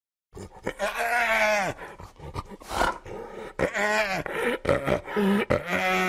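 Spotted hyena calling: three drawn-out calls, each dropping in pitch at its end, with short breathy sounds between them.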